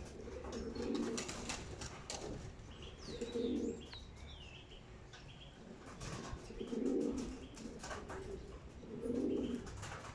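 Domestic pigeons cooing: four low, throbbing coos a few seconds apart, with a brief high chirp about three seconds in.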